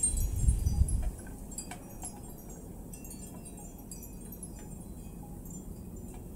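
Wind chimes tinkling in the breeze, many short high ringing notes. Wind buffets the microphone for about the first second, then drops away.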